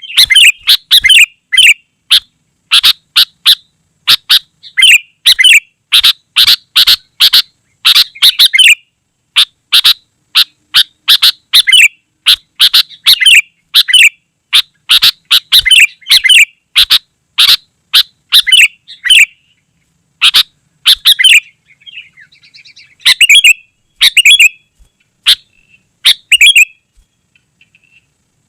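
Sooty-headed bulbul (kutilang) singing loudly in a rapid run of short, repeated chattering notes, with a short lull about three-quarters of the way in before the notes resume.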